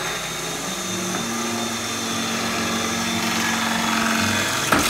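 A power tool running steadily with a whir, with one sharp knock near the end.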